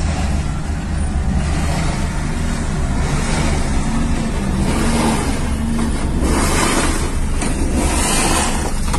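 Road noise heard from inside a moving car: a steady low rumble of engine and tyres with wind and road hiss. The hiss surges louder a few times in the second half.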